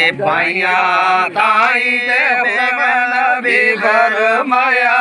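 A man chanting verses of Gojri poetry in a drawn-out sung melody, holding long wavering notes with only short breaks for breath.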